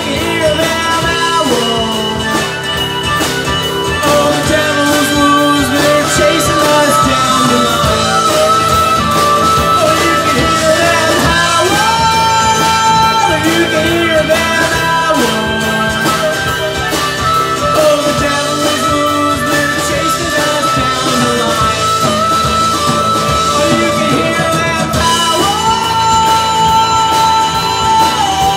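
Live blues-rock band playing an instrumental break: electric guitar, bass, drums and strummed acoustic guitar, with a harmonica playing a lead line of long held notes that bend in pitch.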